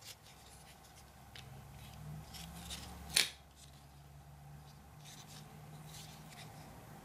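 Large Cold Steel Talwar XL folding knife being handled and folded: one sharp metallic click from the blade and lock about three seconds in, with fainter clicks and rubbing of the blade and handle around it.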